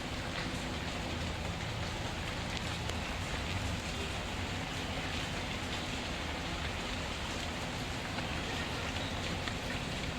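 Steady rain falling, with faint scattered crackles of a wood fire.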